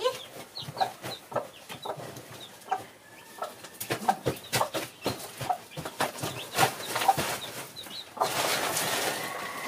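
Chickens clucking, with short high peeps scattered throughout, among a hen with young chicks. Knocks and clicks from hands working on a gravel floor come thick from about four seconds in, and a stretch of rustling noise starts near the end.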